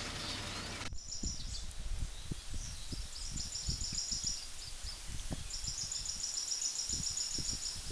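Outdoor ambience: a steady low hum and hiss cuts off sharply about a second in. It gives way to a high, fast chirping that comes in runs of one to two seconds, over irregular low thumps of wind buffeting the microphone.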